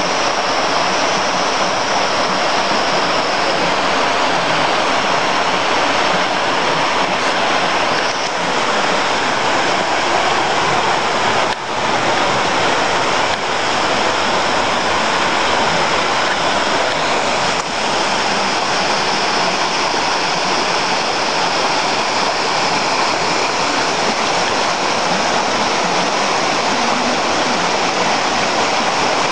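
Mountain stream cascading over boulders in small falls: a steady, loud rush of water.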